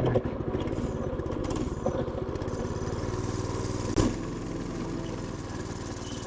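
Predator 212 single-cylinder four-stroke engine on a mini bike running just after a pull start, settling to a steadier, lower idle about three seconds in. A single sharp click sounds about four seconds in.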